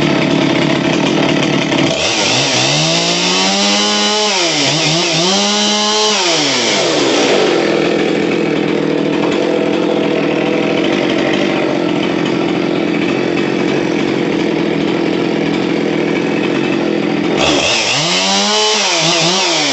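Husqvarna 257 two-stroke chainsaw running at full throttle. Its engine note drops and wavers under load twice, about two seconds in for roughly five seconds and again near the end, typical of the chain being pulled through wood, before it picks back up to a steady high rev.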